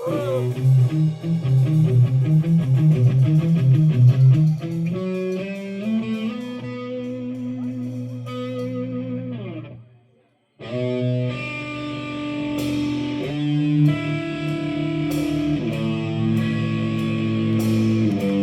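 Live electric-guitar intro to a metal song: fast picked notes for about five seconds, then held notes that slide down in pitch. The playing stops dead for a moment about ten seconds in, then comes back in with sustained chords and sharp high ticks over them.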